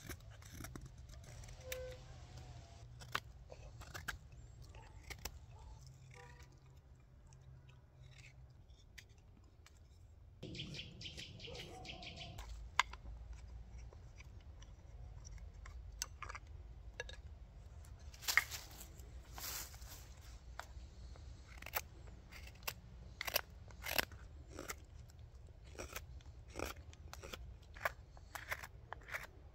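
Carving knife slicing shavings from a green wild cherry spoon blank, shaping the handle and then the bowl: short, crisp cuts, few at first and coming more often in the second half.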